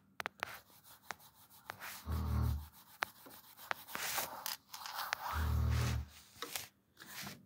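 Faint rubbing and scattered clicks close to a phone microphone, with two low muffled puffs about two and five and a half seconds in.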